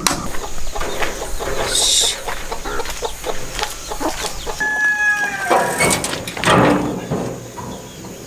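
Chickens clucking nearby, with one pitched call that falls slightly in pitch about five seconds in, among a few light knocks.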